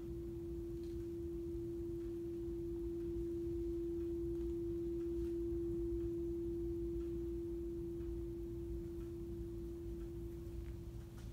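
Steady 340 Hz sine tone from two loudspeakers fed the same signal. It grows louder toward the middle and fades again as the listening point crosses the two-speaker interference pattern: loudest on the constructive centre line, quieter toward the destructive zones on either side.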